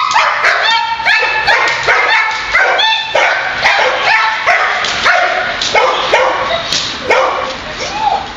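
German shepherd barking rapidly and without pause, about three high-pitched barks a second. These are the excited, driven barks of a dog working a helper in protection training.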